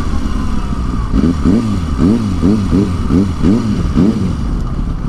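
Sport motorcycle engine running at low speed, with a run of about eight quick throttle blips, each a short rise and fall in pitch, through the middle seconds.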